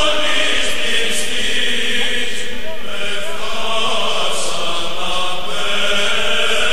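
Slow vocal chant with long held notes that shift pitch only occasionally.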